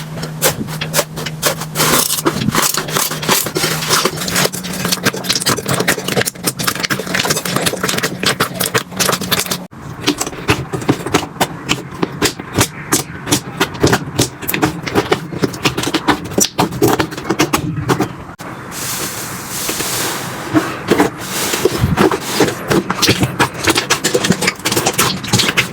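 Slime being squished and worked, a dense run of small crackling and popping clicks, in three clips that change abruptly about ten and eighteen seconds in.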